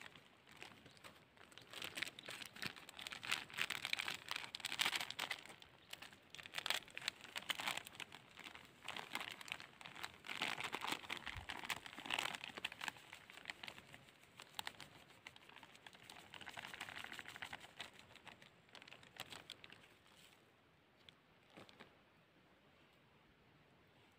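Plastic packaging crinkling and rustling as it is handled, with irregular small crackles and clicks; it dies down near the end.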